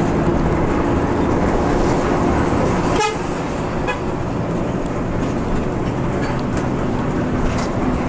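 Bus air horn sounding a long, steady blast over the engine and road rumble inside the cab. It breaks off about three seconds in, and a lower horn note comes back near the end.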